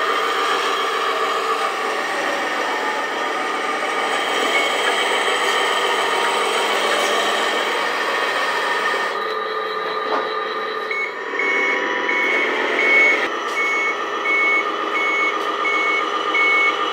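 An RC tractor truck's electronic sound module plays a simulated truck engine running steadily. Past the middle, a reversing beeper starts over it, giving short high beeps at an even pace of about one to two a second as the truck backs up.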